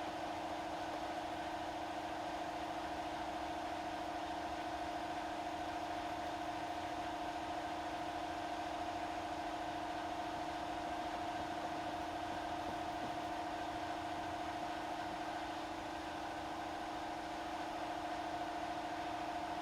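Power-tool motor running at a steady speed, a constant hum that holds one pitch without load changes.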